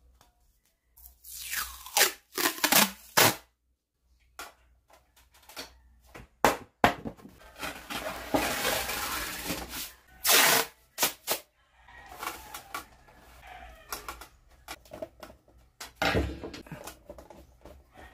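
Masking tape being pulled off the roll and torn, in several short rips with handling and rustling in between.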